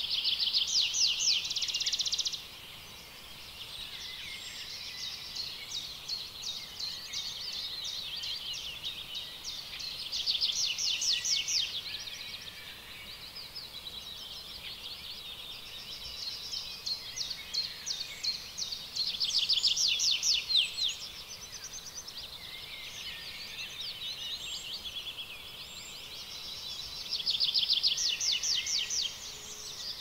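Outdoor wildlife ambience: a continuous chorus of high, rapid trilling calls, swelling four times into loud bursts about two seconds long, roughly every nine seconds.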